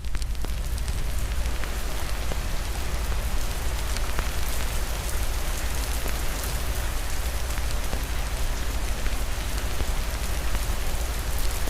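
Steady rain falling on a surface, mixed with the scattered small crackles of a wood fire, over a constant low rumble.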